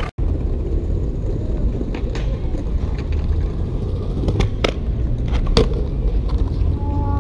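Skateboard wheels rolling on concrete pavement with a steady low rumble, broken by a few sharp clacks of the board against the curb ledge.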